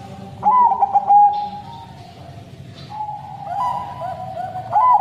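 Zebra dove (Thai-bred 'Bangkok' perkutut) cooing: a run of quick, soft coo notes about half a second in, and another phrase starting near the end.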